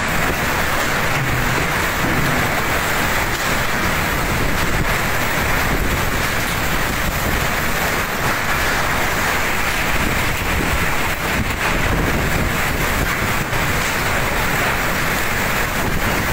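Typhoon wind and driving rain: a loud, steady rush with a rough low rumble beneath it.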